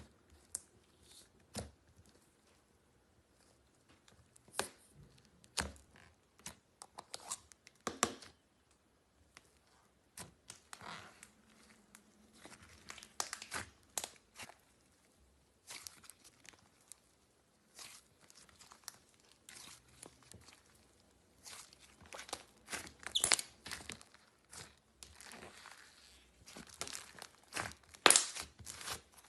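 Slime being handled close to the microphone: irregular crackles, pops and tearing sounds as it is pressed, pulled and squeezed, with a few louder pops near the end.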